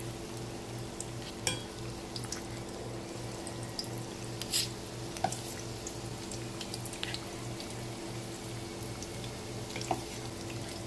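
Batter-coated bottle gourd strips deep-frying in hot oil: a steady sizzle with scattered pops and crackles, a few of them louder. A low hum pulsing a couple of times a second runs underneath.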